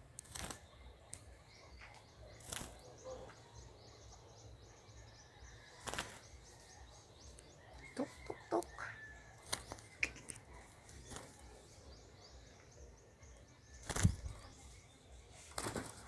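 A black-naped oriole's wings flapping in short, scattered flurries, with light knocks as it shifts on its rope perch. The loudest flurry comes about fourteen seconds in.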